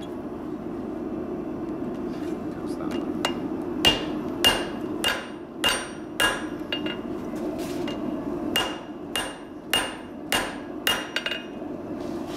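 Blacksmith's hammer striking red-hot iron on the anvil, each blow ringing. The blows come in two runs of about six, just under two a second: the first starts about four seconds in, the second about eight and a half seconds in. A steady low hum runs underneath.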